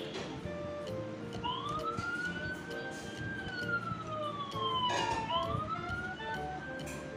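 Toy fire engine's electronic siren wailing, a single tone rising and falling slowly in pitch: it starts about a second and a half in, sinks to its lowest about five seconds in, then climbs again.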